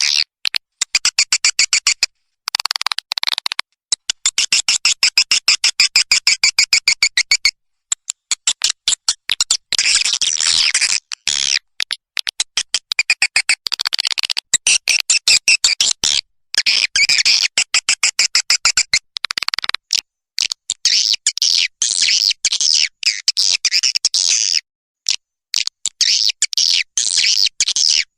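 Recorded swiftlet calls played as a lure for swiftlet farming: fast trains of high, buzzy chirps and twitters, broken every few seconds by brief silent gaps.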